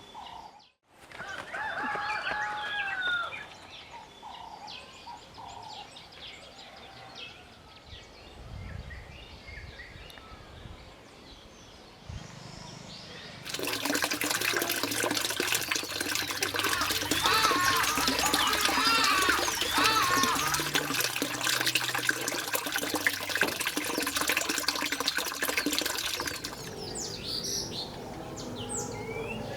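Birds chirping and calling. In the middle a denser, louder chorus of many birds sets in for about thirteen seconds, then thins out again.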